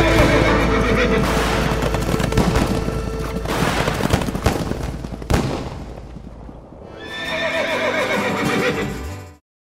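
Music with a horse whinnying, giving way to fireworks crackling and a sharp bang about five seconds in. A wavering whinny follows near the end, before the sound cuts off.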